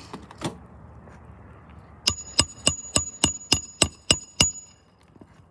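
Claw hammer driving a nail into an asphalt roof shingle: nine quick strikes, about four a second, each with a metallic ring. Two light knocks come first as the hammer is picked up.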